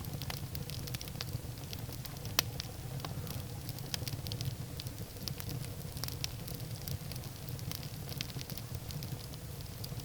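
Firewood burning in a fireplace, crackling with many scattered small pops and one sharper pop about two and a half seconds in, over a low steady rumble.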